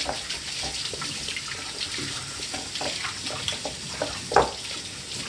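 Glue slime being stirred in a ceramic bowl: a steady wet, sticky stirring noise with many small ticks of the utensil, and one louder knock against the bowl about four seconds in.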